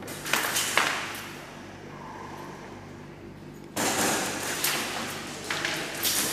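Airsoft guns firing: a couple of sharp shots about half a second in, then a sudden, sustained stretch of rapid fire from about four seconds in.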